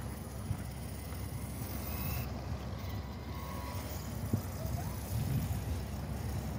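Twin-motor WLtoys 124018 6x6 RC truck driving away over pavement and grass, its electric motors and tyres heard as a steady low rumble.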